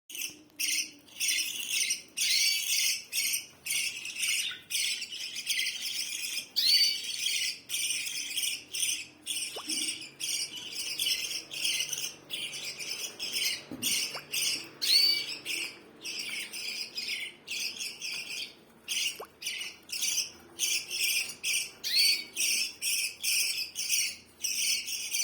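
Birds chirping over a chorus of insects, a high pulsing chirr about twice a second, with a few short rising bird calls scattered through.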